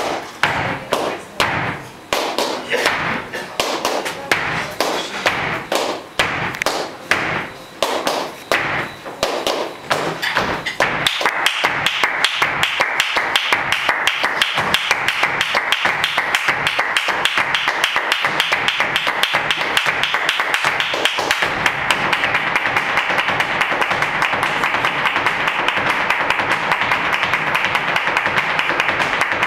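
Flamenco dancer's zapateado footwork, shoe heels and toes striking the stage. It starts in short uneven phrases of strikes, then from about eleven seconds in becomes a fast, unbroken run of strikes.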